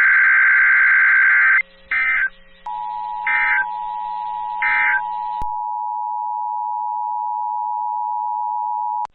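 Emergency Alert System tones: a buzzy burst of SAME digital data, then three short data bursts about a second and a half apart. From nearly three seconds in, these are overlapped by the steady two-tone attention signal, which holds for about six seconds and cuts off sharply just before the end.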